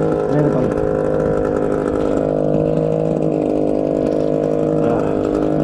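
Small fishing boat's engine running steadily at an even, unchanging pitch.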